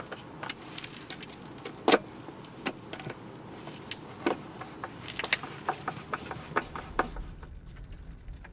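Irregular clicks and knocks of hands handling the plastic lid of a Grundfos SQFlex IO 100 switch box as it is closed. The loudest knock comes about two seconds in, another a little after four seconds. Near the end the clicks stop and a low steady rumble takes over.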